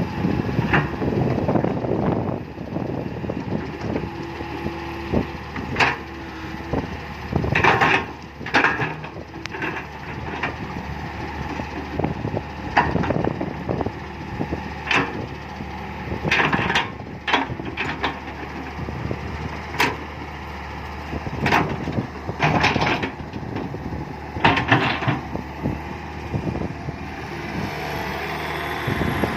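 Komatsu PC120-5 hydraulic excavator running steadily while loading soil into a dump truck, with irregular knocks and thuds from the bucket and soil dropping into the truck bed.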